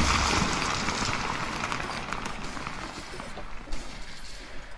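Rushing, rumbling battle noise dying away steadily over a few seconds, with scattered faint crackles.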